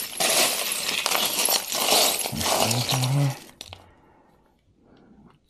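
A handful of costume jewelry being rummaged and shifted, metal pieces and beads clinking and rustling against one another, stopping about three and a half seconds in.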